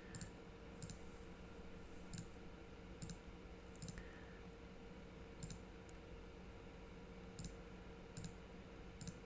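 Computer mouse clicking, about ten sharp single clicks at irregular intervals, over a faint steady room hum.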